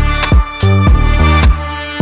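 Background music with a steady drum beat over a deep bass line; the drums drop out for a moment near the end.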